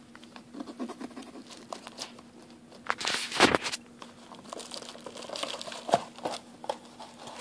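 Clear plastic wrapping crinkling as a glasses case is handled and lifted out of its cardboard box, with a few sharp knocks from the box. The loudest crinkle comes about three seconds in.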